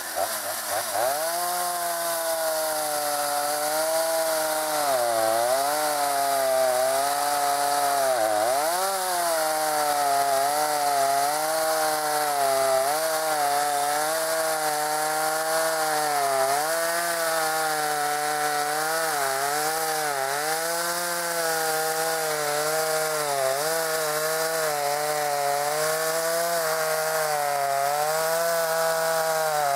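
Two-stroke chainsaw running at high throttle, cutting down through a bundle of thin firewood logs. The engine note dips under load around five and eight seconds in, then holds fairly steady with small wavers as the cut goes on.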